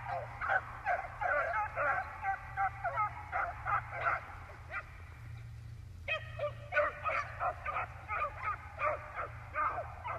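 A pack of beagles baying while running a rabbit, many short yelping calls overlapping one another. The chorus thins out to near nothing for about a second around the middle, then comes back in full.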